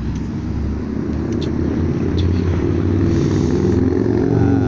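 Harley-Davidson Night Rod's V-twin engine running as the motorcycle and sidecar approach, growing gradually louder.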